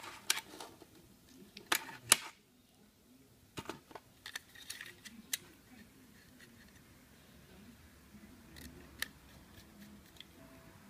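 Light clicks and taps of a metal drive bracket being handled and screwed onto a 2.5-inch SSD with a small screwdriver. A few sharp clicks come in the first few seconds, then quieter ticking and rubbing of metal parts.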